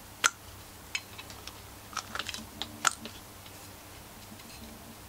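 Small two-stroke engine parts, a piston and aluminium crankcase, being handled: a scattered run of sharp clicks and light taps over the first three seconds, then only faint handling noise.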